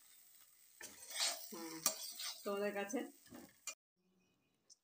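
Metal spatula stirring and scraping a dry puffed-rice mixture around a kadai: a run of scrapes and clinks that cuts off suddenly about three and a half seconds in.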